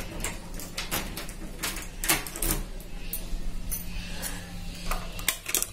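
Light clicks, taps and rustling at irregular intervals from a phone being handled against clothing and a towel, over a faint steady low hum.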